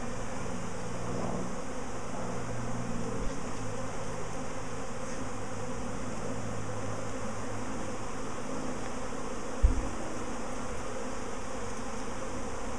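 Honey bee swarm buzzing steadily: the hum of many bees in flight around the cluster. A short dull thump sounds near the microphone about ten seconds in.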